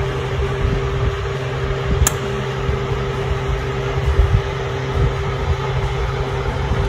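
Steady mechanical hum with one steady tone over a low rumble, broken once by a sharp click about two seconds in.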